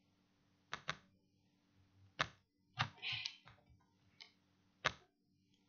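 Clicks of a computer mouse: a quick double-click about a second in, then several single clicks, over a faint steady low hum.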